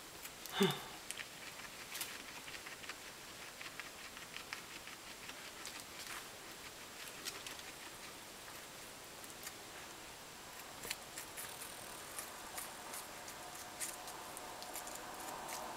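A guinea pig crunching and nibbling a stick of raw zucchini: a long run of small crisp bites and chewing clicks. About half a second in comes one short, louder voiced sound.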